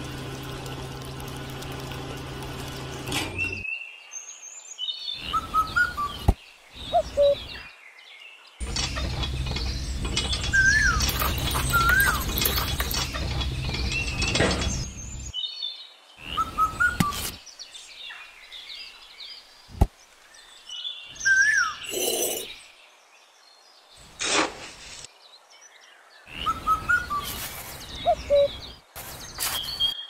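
A small electric motor, the toy cement mixer's, hums steadily and stops about three and a half seconds in. After that, birds chirp in short calls again and again, with a longer stretch of rough handling noise in the middle and a few sharp clicks.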